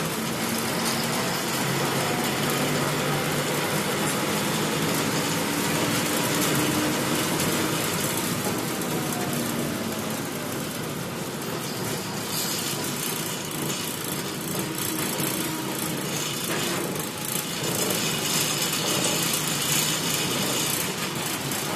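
Bus engine and cabin noise from the driver's cab: a steady mechanical hum with road noise as the bus rolls slowly.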